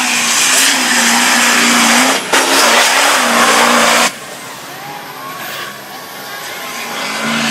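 Duramax turbo-diesel mega mud truck racing at full throttle, a loud, dense engine sound with a wavering pitch. It breaks off briefly a little after two seconds, then drops sharply about four seconds in to a quieter engine sound that builds again near the end.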